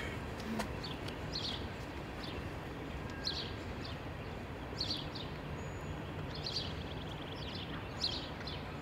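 Outdoor ambience: a steady low background rumble with small birds chirping now and then, short high chirps scattered throughout.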